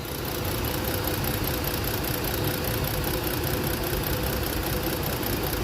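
Ford Explorer engine running steadily at idle with one cylinder misfiring. The misfire is traced to that cylinder's ignition coil getting supply voltage but no trigger signal from the igniter or engine computer.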